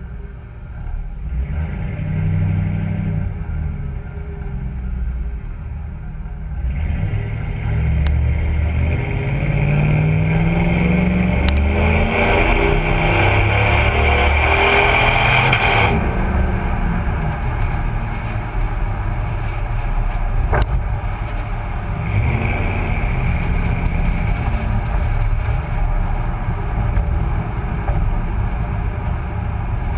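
2005 Ford F-150 FX4's 5.4-litre V8 exhaust through a Magnaflow muffler, heard right at the tailpipe while driving. The engine pitch rises as it accelerates about a third of the way in, with a louder, harsher stretch that ends abruptly about halfway, then it settles into steady cruising rumble.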